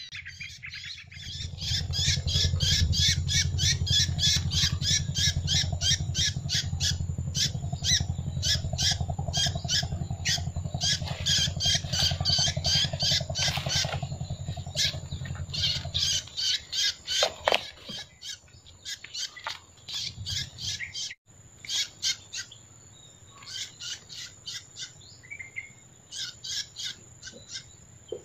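A bird calling in a fast series of short, sharp notes, about three a second, thinning out in the second half. A low rumble runs underneath and stops about sixteen seconds in.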